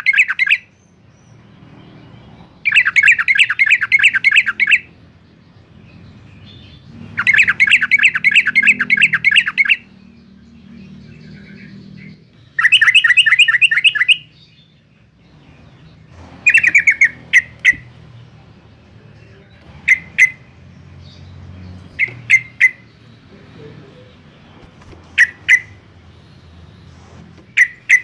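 Yellow-vented bulbul calling: several bursts of about two seconds of rapidly repeated bright notes, then from about halfway on, short single notes a second or two apart.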